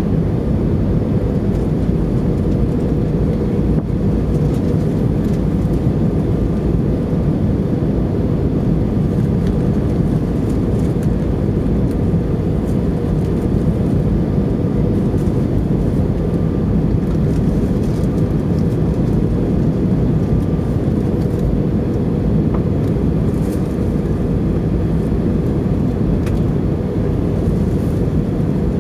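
Airbus A320 cabin noise on final approach: a steady low rumble of engines and rushing air, with flaps extended.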